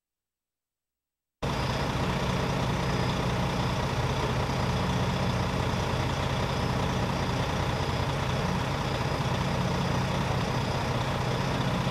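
Silence for about the first second and a half, then a fire engine's engine idling steadily.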